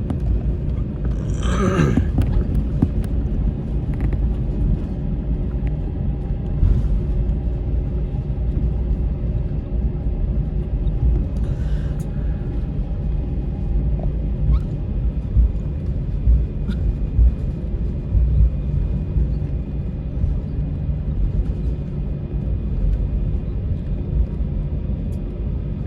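Airbus A321 cabin noise before take-off: a steady low rumble from the running jet engines and the aircraft moving along the ground, with faint steady engine tones above it. A short louder rustle comes about two seconds in.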